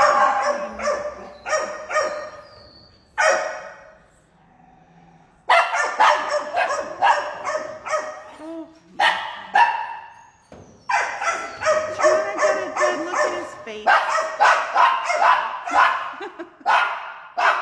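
Dog barking repeatedly in rapid bouts, about two to three loud barks a second, with short pauses about four seconds in and again about ten seconds in.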